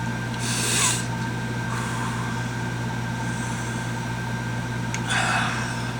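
Two short, breathy rushes of air, one about half a second in and one about five seconds in: a person breathing out hard through a mouth burning from habanero heat. A steady low hum runs underneath.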